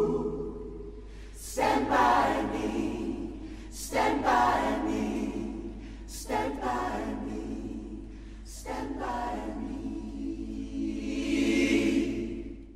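A gospel choir singing slow, unaccompanied held chords, with a fresh entry about every two and a half seconds, fading at the very end.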